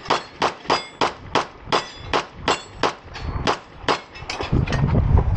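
Rapid pistol fire on steel targets: about a dozen sharp shots, roughly three a second, each followed by the metallic ring of a struck steel plate. A low rumble comes in near the end.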